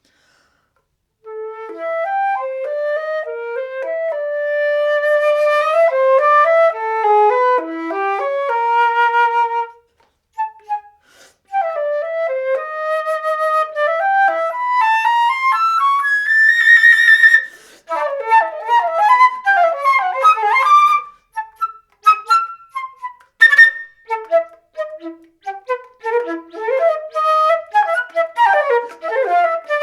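Solo flute playing a contemporary piece, starting about a second in with quick running phrases of many short notes. A breathy, noisy note comes in the middle, followed by rapid detached notes with sharp clicks among them.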